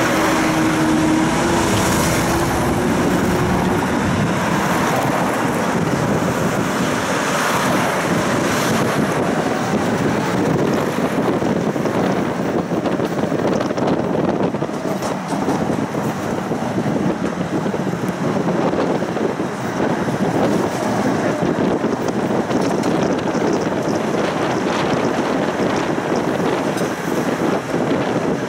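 Tram running along its route, heard from inside the car: a steady rumble and rush of wheels on rails and air. In the first few seconds a motor whine holds one pitch, then glides up and down.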